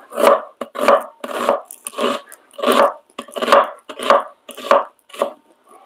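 Knife chopping an onion on a wooden cutting board, in a steady run of cuts about two a second.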